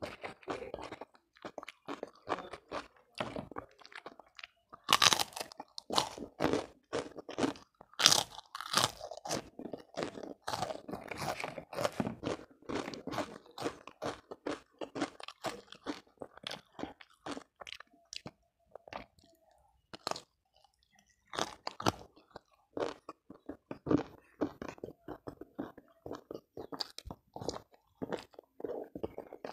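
Close-miked eating: a person biting and chewing crunchy food, with many sharp crunches and wet chewing. The loudest crunches come about five and eight seconds in, and there is a short lull a little past halfway.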